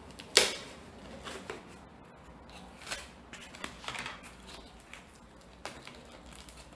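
A package being opened with a small knife: cutting and tearing of tape and packaging, with crinkling. A sharp snap comes about half a second in, then scattered clicks and scrapes.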